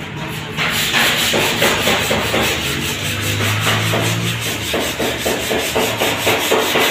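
Hand sanding: a sanding block or paper rubbed back and forth in steady, rhythmic strokes, about three a second.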